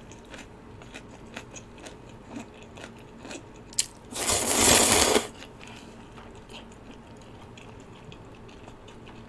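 Close-miked eating sounds: quiet chewing with small clicks, then a loud slurp of spicy ramyun noodles lasting about a second, about four seconds in.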